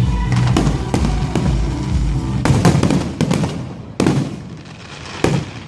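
Fireworks bursting and crackling in quick succession over music, which fades out about halfway through. Two sharp single bangs follow, the second near the end.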